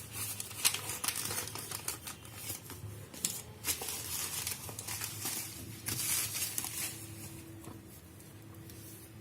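Packaging being handled while a smartphone is unboxed: crinkling and rustling with irregular clicks and taps, dying down about seven seconds in.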